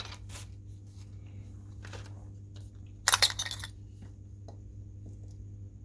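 Small tools and their packaging being handled: a few light clicks and knocks, with a short burst of crackling plastic wrapping about three seconds in, over a steady low hum.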